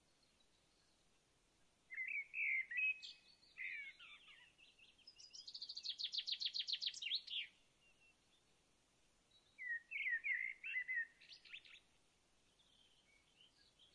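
Songbirds singing in the forest: short warbled phrases about two seconds in and again near the end, with a fast trill of about eight notes a second in between.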